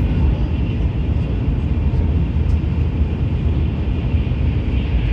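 Steady low rumble and rush of a Tokaido Shinkansen train running at high speed, about 265 km/h, heard from inside the passenger car.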